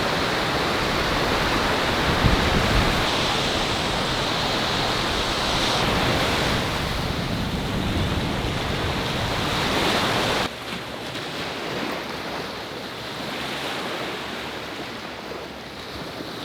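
Sea surf washing ashore, with wind. About ten seconds in, the sound drops suddenly to a quieter wash of waves.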